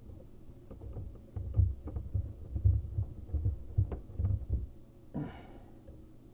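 Irregular low thumps and light clicks, like things being handled and knocked, for a few seconds, then a brief pitched sound about five seconds in.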